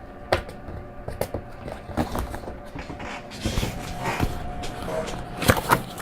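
Handling noises from a box of 3D-printer filament being picked up and opened: a string of sharp clicks and knocks with rustling in between, growing busier toward the end.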